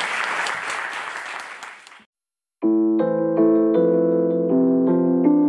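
Audience applause fading out and cutting off about two seconds in; after a brief silence, piano music begins, a melody of single notes over a steady lower accompaniment.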